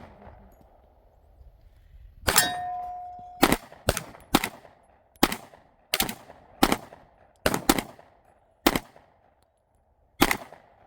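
About a dozen gunshots fired at steel targets in a quick semi-automatic string, several a second at times. The first shot is followed by a clear ringing ding of struck steel lasting about a second.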